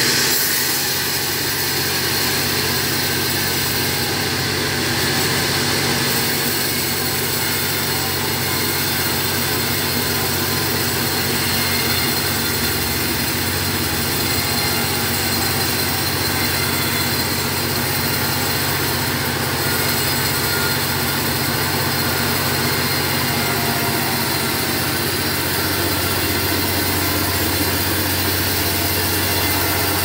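Homemade band sawmill running steadily while sawing trembesi (rain tree) timber: a low machine hum under a broad, even hiss.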